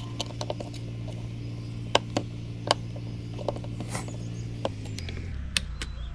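Scattered light clicks and taps of small plastic steering-column switch parts being handled and slid apart, over a steady low hum that drops in pitch about five seconds in.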